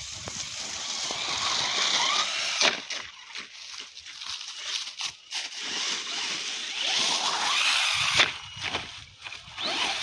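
ZD Racing ZMT-10 electric RC monster truck driving over grass and dry leaves: the motor whines up and down with the throttle, with crackling from the tyres in the leaves and a few sharp knocks as it bounces.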